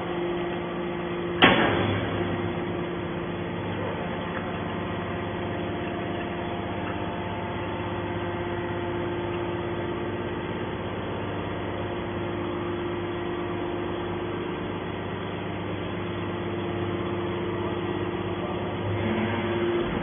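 Hydraulic power unit of a scrap metal baler running with a steady hum while the ram pushes a compressed bale of scrap out of the chamber. A single sharp bang comes about a second and a half in, and the hum rises slightly in pitch and loudness near the end.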